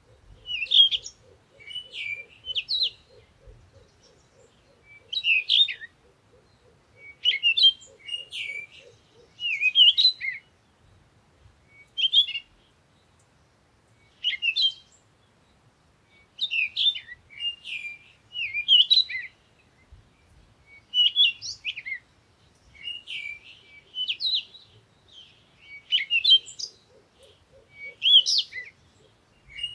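A small bird chirping in short, high, twittering phrases that come again every second or two.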